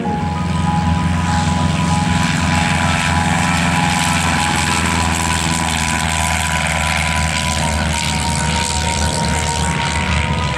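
Small single-engine propeller plane running at high power as it takes off from a grass strip and climbs past low: a steady engine and propeller drone.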